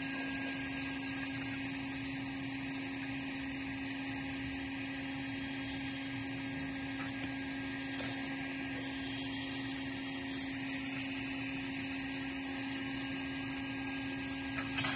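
A steady machine hum with one constant low tone and a hiss, unchanging throughout, with faint single clicks about eight seconds in and near the end.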